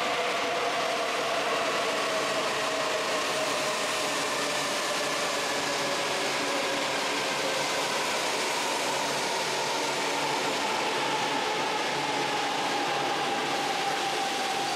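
JR East E4 Series double-decker Shinkansen pulling into the station and slowing: a steady rush of running noise with a whine that falls slowly in pitch as it decelerates.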